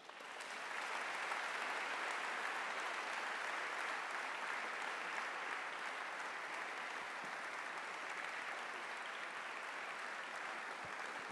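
Audience applauding, building up within the first second, then steady clapping that eases slightly near the end.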